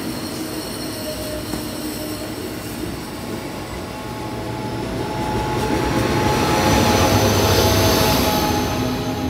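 Amtrak passenger train rolling past close by, coaches and then a Siemens Charger diesel locomotive. There is a steady rumble with high, even whining tones over it. It grows louder from about halfway through as the locomotive comes by, and eases off just before the end.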